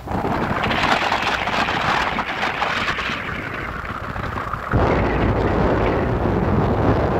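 Wind buffeting the microphone of a moving vehicle, over tyre and road noise on a gravel road. It starts abruptly and turns deeper and louder about two-thirds of the way through.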